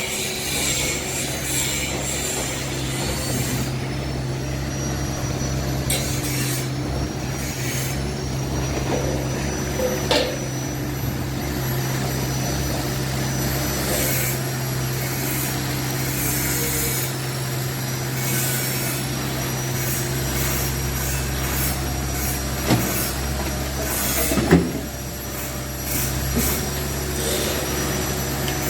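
Excavator working: its diesel engine runs steadily under a thin high whine that steps up in pitch a few times, with scattered scrapes and knocks and two sharper clanks near the end.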